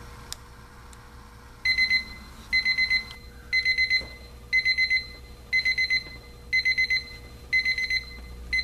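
Seiko Jourdan QHE115KLH battery travel alarm clock's alarm going off: high electronic beeps in quick bursts of several, repeating about once a second, starting about a second and a half in.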